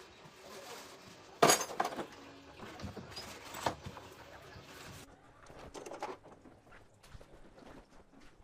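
Hard objects clinking and knocking as they are handled, in a few irregular strikes, the loudest about a second and a half in.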